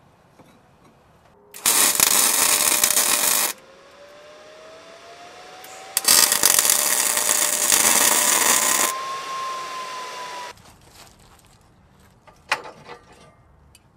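Electric arc welder tack-welding steel angle-iron brackets: two bursts of steady welding crackle, the first about two seconds long and the second about three, each starting and stopping sharply. A few light metal clicks come near the end.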